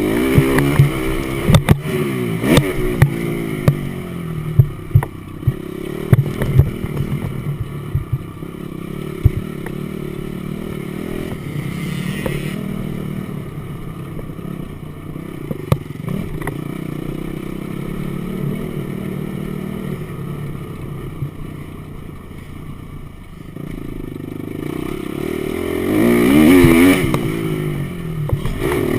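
Motocross dirt bike engine revving up and falling back as it rides, with sharp knocks and clatter during the first several seconds and the strongest rev near the end.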